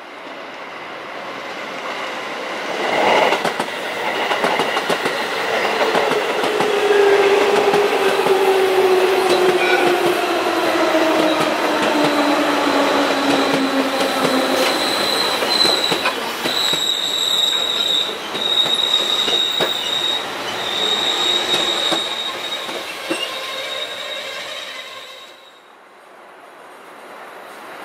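JR 211 series electric multiple unit, a long Chuo Line set, running past on the track. A tone falls in pitch through the first half. Then a high, steady wheel squeal holds for about ten seconds before the sound drops away near the end.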